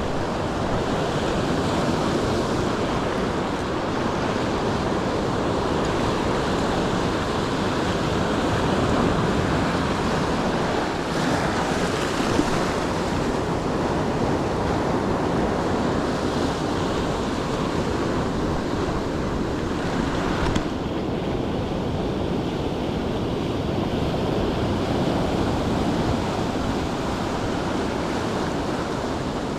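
Ocean surf breaking and washing on the shore in a steady, swelling rush, with wind on the microphone.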